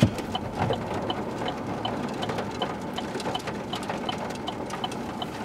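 A steady, evenly spaced ticking, about three ticks a second, over a constant haze of wind and background noise.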